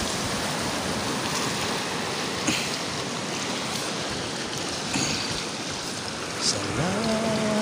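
Shallow seawater sloshing and trickling around a wader's legs and a hand reaching into the water, with three small splashes. A tune starts near the end.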